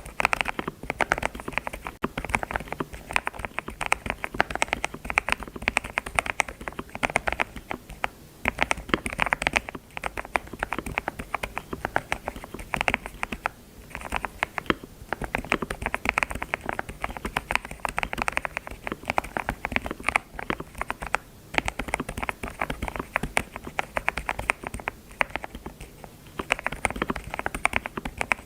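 Computer keyboard being typed on: quick, irregular key clicks in flurries with brief pauses.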